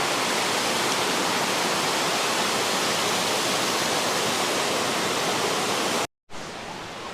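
Steady rush of a waterfall about 60 feet high, cut off abruptly about six seconds in and followed by a quieter, fainter hiss of water.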